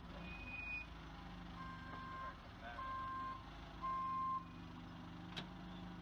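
Forklift backup alarm beeping three times, about a second apart, over the steady running of the CAT forklift's engine; a single sharp knock near the end.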